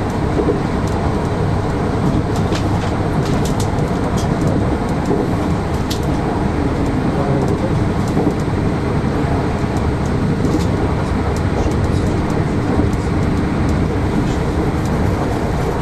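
Nord-Ostsee-Bahn passenger train running at speed: a steady rumble of the wheels on the rails, with a scattering of light clicks.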